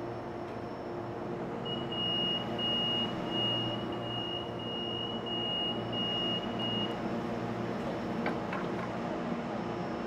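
Commuter-train door-closing warning beep: one high, steady tone lasting about five seconds, starting about two seconds in, over the steady hum of the idling train. A short knock follows about eight seconds in.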